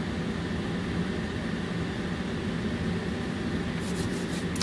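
Steady low mechanical hum, like a running fan or appliance. Near the end come a few quick, soft brushing taps as hands are rubbed together to dust off chopped green onion.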